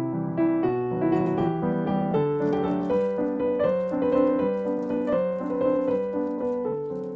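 Background piano music: a gentle melody with chords.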